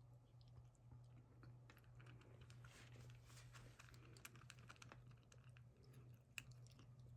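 Faint, quick, irregular clicking and crunching of a cat chewing its food, over a low steady hum.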